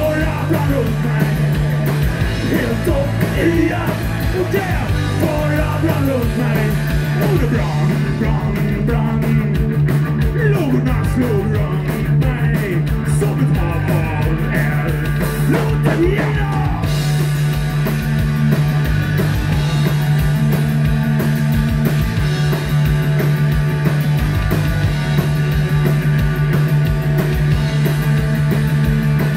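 Live rock band playing punk-style rock: electric guitars, bass guitar and drums, with a man singing lead through most of the first half. The band plays on with little or no singing near the end.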